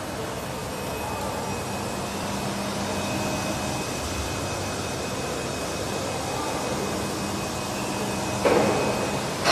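Wallpaper-roll film sealing and packing machine running with a steady mechanical hum. Near the end a louder, rougher mechanical noise starts suddenly.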